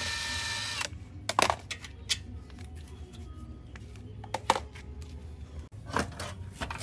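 A short steady mechanical whir that stops about a second in, followed by a few light metallic clinks and knocks of tools and parts being handled.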